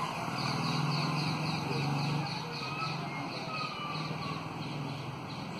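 Street ambience: a steady low hum of a motor vehicle engine, with a quick run of short high chirps, about three a second, through the first few seconds.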